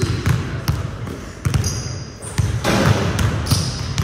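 Basketballs bouncing on a hardwood gym floor, a quick series of separate thuds, with short high squeaks in between and a brief louder rush of noise about three seconds in.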